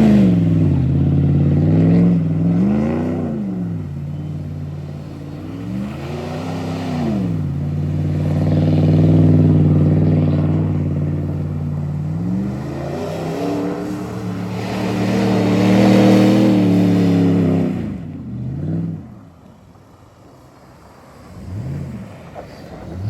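Off-road 4x4 pickup truck engine revving hard in repeated rising and falling surges while powering through mud, then dropping away with a few short blips near the end.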